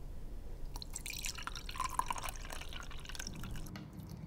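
Hot water pouring from a kettle into a ceramic mug, splashing and trickling as the mug fills, the stream thinning out near the end.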